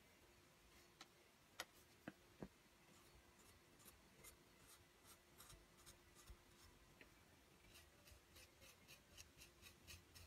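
Faint scraping of a wire loop tool carving into grogged stoneware clay, with a few sharper clicks about two seconds in. Near the end the scrapes turn into quick, even strokes, about three a second.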